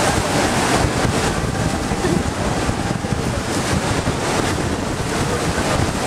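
Wind buffeting the microphone in gusts over the steady roar of the American Falls at Niagara and the churning water below them.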